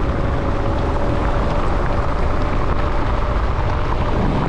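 Wind rushing over the microphone as a mountain bike descends fast on an asphalt road, with a steady hum from the knobby tyres rolling on the tarmac that drops slightly in pitch near the end.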